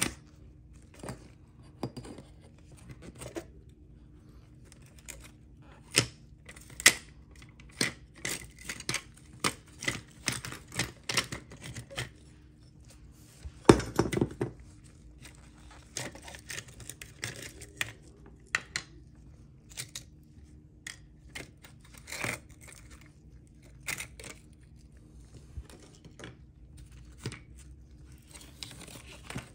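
Rusty diecast 1956 Ford F-100 model being taken apart by gloved hands: scattered small clicks and knocks of metal and plastic parts, with a louder crackling rattle near the middle. A faint steady hum runs underneath.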